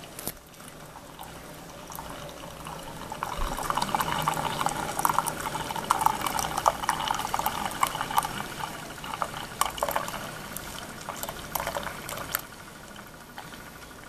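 Keurig Special Edition single-cup coffee brewer dispensing coffee: a thin stream pouring and splattering into a mug over a low steady hum. The pouring grows louder a few seconds in and eases off near the end.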